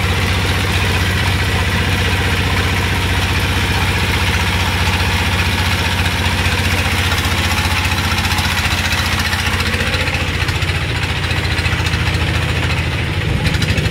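Inboard engine of a wooden river boat running steadily under way, a loud constant low drone that shifts slightly near the end.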